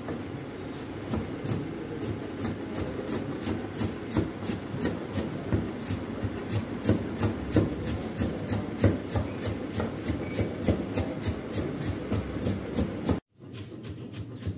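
A kitchen knife chopping green onions on a wooden cutting board: quick, even strokes at about four a second, each a knock of the blade on the board with a scrape of the cut greens. The sound cuts out abruptly near the end, then the chopping goes on more faintly.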